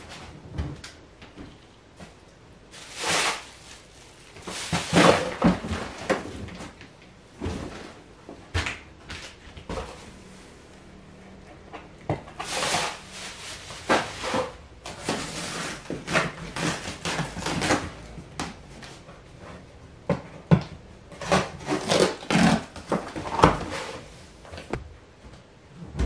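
Rummaging through cardboard moving boxes: irregular rustling, scraping and knocking as cardboard flaps and the packed clothes and items inside are pulled about and shifted.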